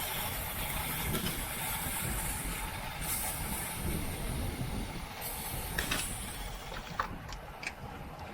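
Wind rushing over the microphone and tyre noise from a racing bicycle at speed. A hiss comes and goes, and a few light clicks sound near the end.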